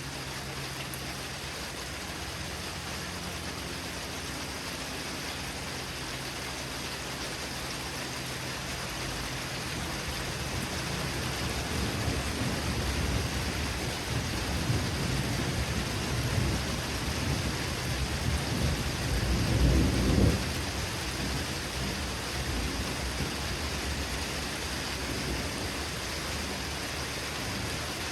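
Heavy rain falling steadily during a thunderstorm, with a long roll of thunder that builds about a third of the way in, is loudest around two-thirds through, then fades back into the rain.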